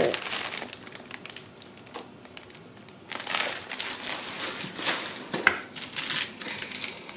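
Plastic food packaging crinkling in short, irregular rustles as it is handled: a plastic-wrapped multipack of ramen noodles and wrapped fruit bars being picked up and set down.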